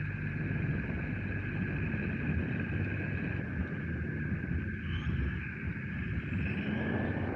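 Onboard sound of a 1/10 electric RC touring car driving on asphalt: a steady low rumble of tyres and drivetrain, with two steady high-pitched tones over it.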